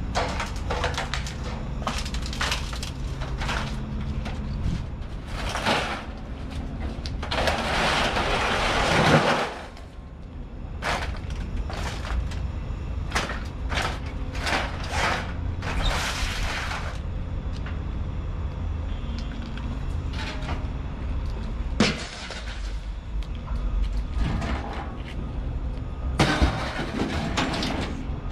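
Steady engine rumble under repeated clanks, knocks and rattles of scrap metal, with a longer, louder scraping crash about eight seconds in.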